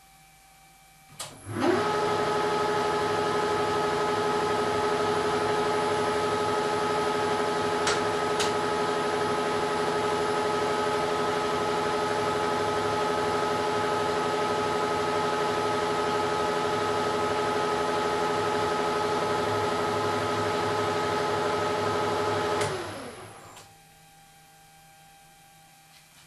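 1972 Weiler Matador SV lathe switched on with a click, the spindle whining up to speed within half a second, then running steadily at 600 rpm with a steady gear whine while a carbide insert takes a facing cut across the steel puck. About 22 seconds in it is switched off and winds down.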